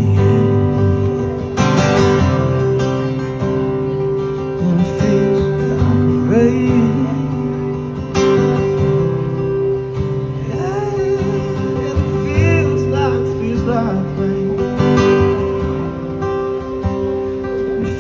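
Steel-string acoustic guitar strummed in sustained chords, with a strong strum about every three seconds, and a man singing over it.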